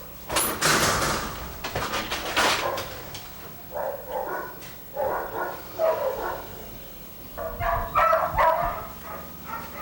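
Several dogs barking in short repeated barks, with a noisy scraping rattle in the first few seconds.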